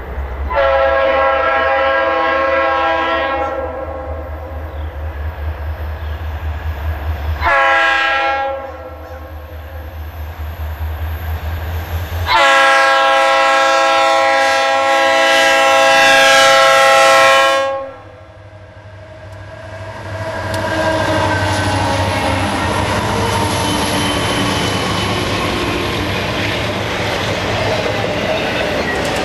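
Horn of ex-Union Pacific EMD SD60 diesel locomotives sounding for a grade crossing: a long blast, a short one about 7.5 seconds in, and a long blast of about five seconds from about 12 seconds in. From about 20 seconds in, the locomotives and a string of autorack freight cars pass close by with steady rumble and wheel-on-rail clatter.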